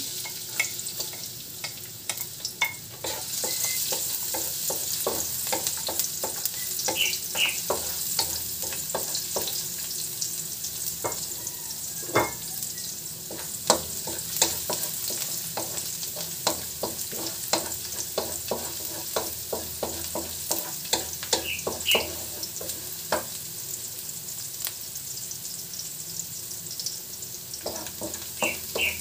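Minced garlic sizzling in hot oil in a metal wok, with a steady frying hiss, while a wooden spatula scrapes and taps against the pan as it is stirred.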